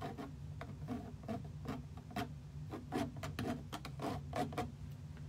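A turkey feather used as a paintbrush, dabbed and dragged across a canvas: a run of quick, light taps and scrapes, irregular, about three a second.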